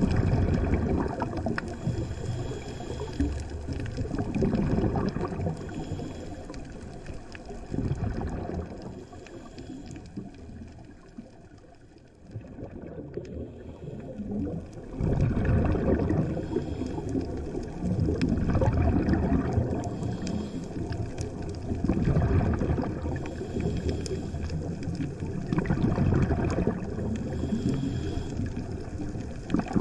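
Underwater sound of a scuba diver's exhaled regulator bubbles gurgling past the camera in surges every few seconds, with a quieter stretch of a few seconds in the middle.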